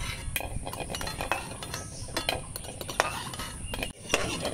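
Long metal spoon clinking and scraping against a steel pot as hard-boiled eggs are scooped out of the water and laid on a terracotta plate: a series of irregular light knocks and clinks.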